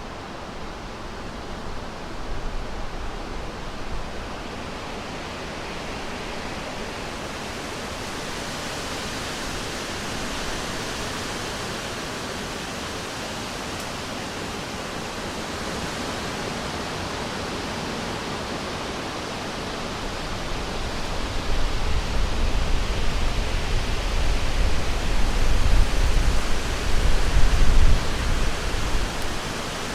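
Wind blowing through forest trees, a steady rushing noise that swells into stronger gusts with a deep rumble in the last third.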